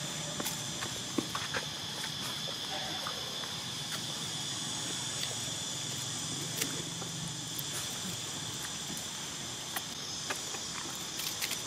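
Steady high-pitched chorus of insects, unbroken throughout, with a few faint short ticks now and then.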